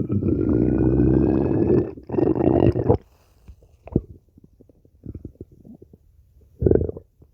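Stomach growling: a long, loud gurgling rumble with a rising squeaky whine in it for about two seconds, a shorter growl right after, then a few small gurgles and one more brief growl near the end.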